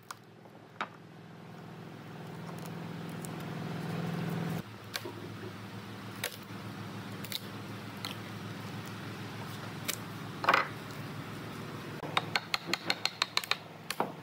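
Wood chisel, driven by a wooden mallet and by hand, cutting and prying a pine frame strip off the edge of an epoxy tabletop: scattered sharp taps and clicks, a louder crackle about ten seconds in, and a quick run of about ten taps near the end. A steady low hum runs underneath.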